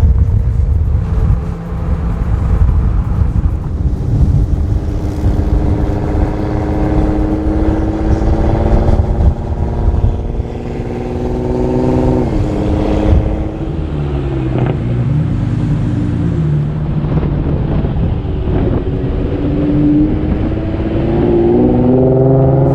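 Car engine pulling under load, its pitch rising slowly for about ten seconds and then dropping suddenly. It climbs again near the end and drops sharply once more, over a heavy low rumble.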